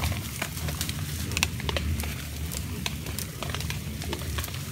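A herd of white-lipped peccaries in brush: irregular sharp clicks and crackles, several a second, over a low rumble.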